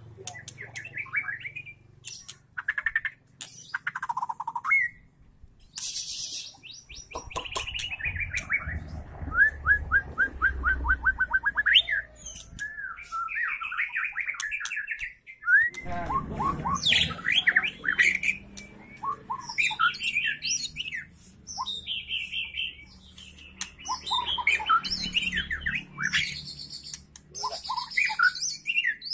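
Young white-rumped shama (murai batu trotol) singing a varied, nearly continuous song of whistled glides, rapid trills and chattering notes.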